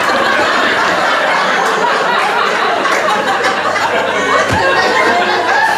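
Audience laughing loudly and steadily after a stand-up punchline.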